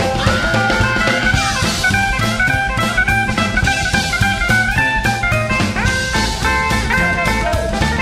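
Instrumental break in a psychobilly song: an electric guitar solos with bent notes over a driving drum kit and upright bass.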